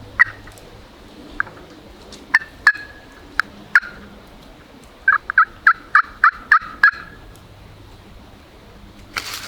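Turkey calling on a friction pot call: a few scattered clucks, then a quick run of about eight yelps. A short rush of noise comes near the end.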